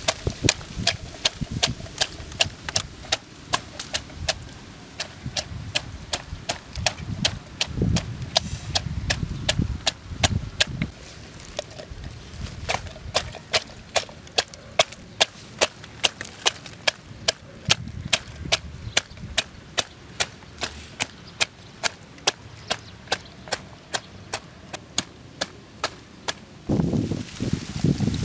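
A wooden stick pounding red chilies in an opened green coconut, a steady run of sharp knocks about two to three a second. Near the end the knocking stops and coconut water is poured from a second coconut into the shell.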